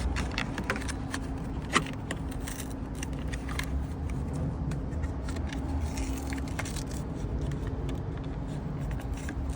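Small clicks and scrapes of a car's turn signal bulb and its plastic socket being handled and fitted, over a steady low hum; the sharpest click comes about two seconds in.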